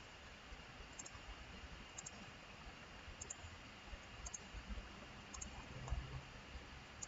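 Faint computer mouse clicking about once a second, each click a quick pair of ticks, as points are picked one after another.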